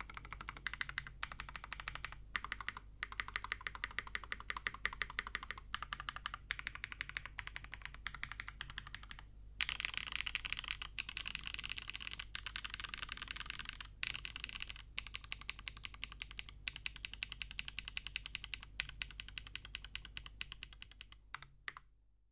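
Typing on a Kbdfans KBD8X MKIII custom mechanical keyboard with an aluminium plate, silicone Keysnap mount and Kezewa x SWK Typewriter switches under GMK keycaps: a rapid stream of key clicks. After a short pause about nine seconds in, the keystrokes come brighter and louder for about four seconds, and the typing fades away near the end.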